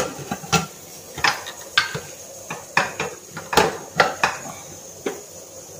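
Metal clinks and knocks of a pressure cooker's lid being seated and its handles pressed together and locked: about a dozen sharp, irregular clicks that stop about five seconds in.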